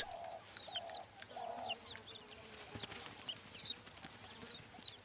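Birds calling: many short, high-pitched chirps that sweep downward in pitch, repeated throughout, with a softer lower warble in the first second or two.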